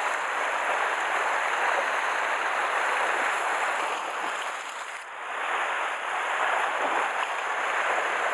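Sea surf washing and surging against a rocky shore, a steady rush of water with a short lull about five seconds in.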